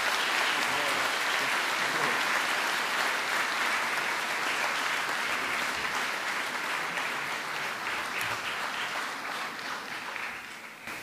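A large audience applauding at the end of a speech: dense, steady clapping that thins and fades out near the end.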